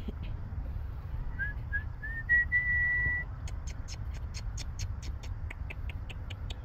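Whistling: a few short rising notes, then one long steady note, followed by a rapid run of short high chirps, about six a second.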